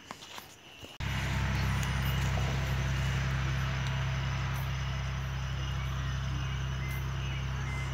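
A few faint clicks, then about a second in a motor starts being heard abruptly, running steadily at an even speed as a loud low drone with a hiss above it.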